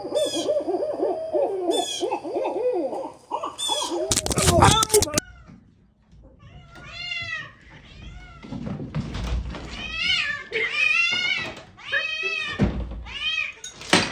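Barred owls calling for the first four seconds, a wavering run of pitched calls. A loud, sudden noisy burst follows at four to five seconds. After that, cats meow over and over, each meow rising and falling.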